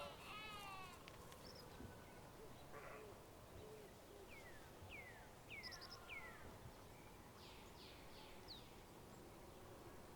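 A goat bleats, the wavering call ending about a second in. Then a bird gives four quick falling chirps, followed by a few more faint chirps.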